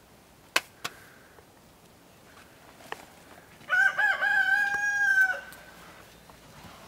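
A rooster crows once about halfway through: a few quick wavering notes, then one long held note lasting over a second. Two sharp knocks come before it, within the first second.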